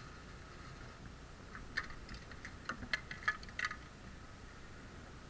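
A run of light metallic clicks and ticks from the key and the fuel-tank cap of a TVS Apache RTR 160 motorcycle being handled as the cap is shut, bunched together in the middle of the stretch.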